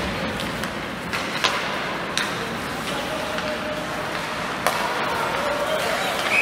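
Game-day noise: a steady murmur of indistinct voices with a few sharp knocks and clacks from play, one louder clack about three-quarters of the way through.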